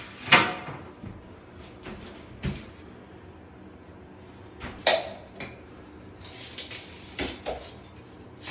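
Irregular knocks and clanks of construction work, the loudest just after the start, then single hits every two seconds or so and a quick cluster of them late on.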